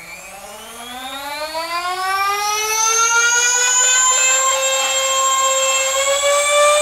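Nerf blaster's pair of motor-driven 3D-printed flywheels spinning up: a loud whine that climbs steadily in pitch and is still rising at the end. The noise comes from the printed wheels being slightly out of round and out of balance.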